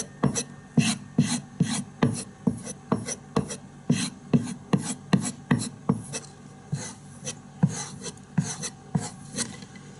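Steel knife blade being stropped on a thick, hard leather strop dressed with fine diamond spray, in quick back-and-forth strokes with light pressure; each stroke is a short rasping swish, about two to three a second.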